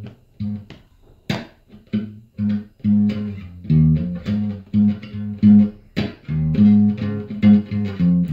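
Telecaster-style electric guitar picking a steady rhythmic pattern of low bass notes, about two a second, with short muted strums between them.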